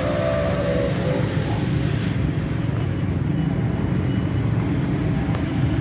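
Outdoor street noise dominated by a steady low rumble; a pitched tone fades out in the first half-second.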